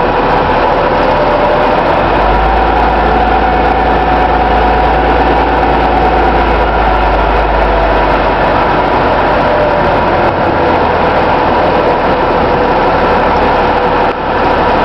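Rear-load garbage truck's engine running steadily as the truck reverses slowly, heard from the cab. A deep low hum swells in about two seconds in and eases off about halfway through.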